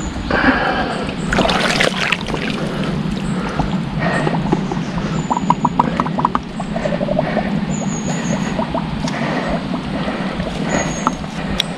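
Shallow river water splashing and sloshing around a landed wels catfish at the bank, louder at the start, over a steady low hum. A run of short ticks comes about five seconds in, and a few brief high chirps are heard.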